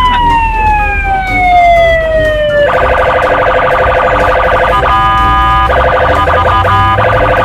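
Police car siren: a long wail falling slowly in pitch, then about a third of the way in it switches to a fast warbling yelp that breaks off briefly twice. A low rumble runs underneath.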